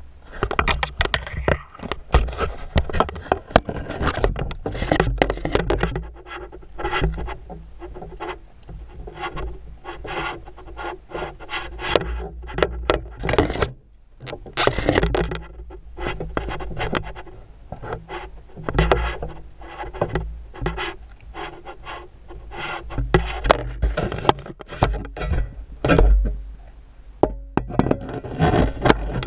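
Rubbing, scraping and knocking from a body-worn action camera moving with the wearer's steps, with irregular clicks and a low rumble of handling noise.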